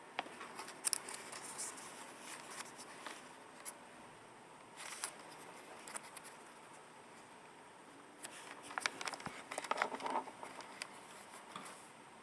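Faint scattered clicks and short rustles of something being handled. They cluster near the start, come again as a short burst about five seconds in, and return as a denser run of clicks between about eight and eleven seconds in.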